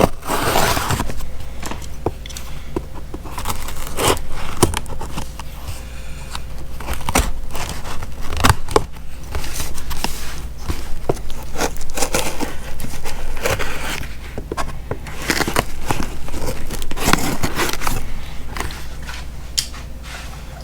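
Shipping package being cut and torn open by hand: irregular crinkling, tearing and scraping of the packaging.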